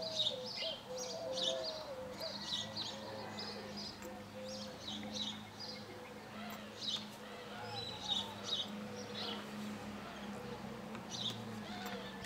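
Small birds chirping over and over, with lower warbling calls, over a steady low hum.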